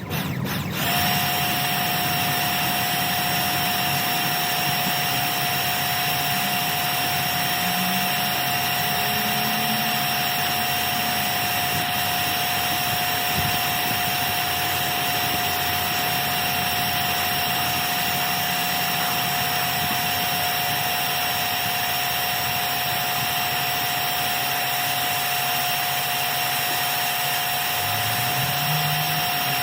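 Small electric pressure washer running steadily: a constant motor whine over the hiss of the spray, with a brief break about half a second in.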